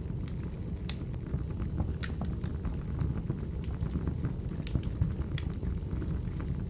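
Crackling wood fire: a steady low rumble of burning firewood with scattered sharp snaps and pops.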